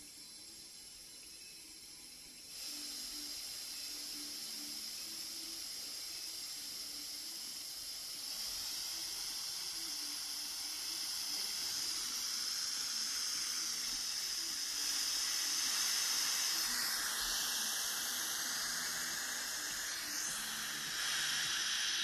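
Air hissing in through the valve of a vacuum chamber as it is slowly let back up to atmospheric pressure, growing louder in steps, with a faint whistle in it. The hiss stops suddenly at the end.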